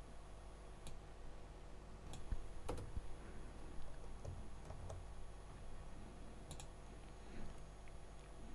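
Scattered computer keyboard keystrokes and mouse clicks, a dozen or so irregular sharp clicks, over a low steady hum.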